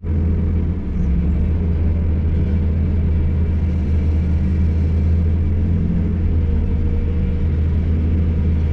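Hydraulic excavator's diesel engine running steadily at an even speed, a constant low rumble.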